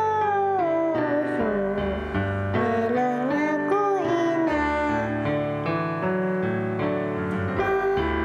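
A young girl singing a song in Siwkolan Amis over a keyboard and piano backing track, her voice carrying a smoothly gliding melody.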